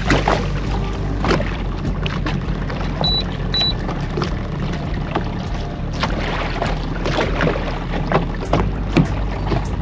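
Outboard motor running steadily at slow trolling speed, a low even hum, with scattered knocks and clicks. Two short high electronic beeps about three seconds in.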